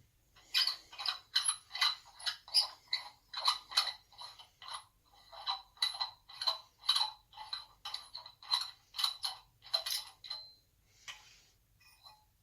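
Small hand ratchet clicking in quick back-and-forth strokes, about two a second, while undoing a nut on an SU HD8 carburettor; the clicking stops about ten seconds in.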